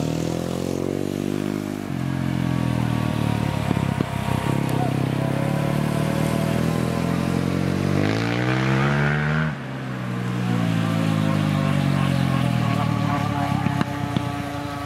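Heng Long 3837 RC speedboat's twin 380 brushed electric motors whining at speed, the pitch sliding up and down as the boat turns and runs past. About eight seconds in the whine climbs steeply, then drops away sharply a second and a half later.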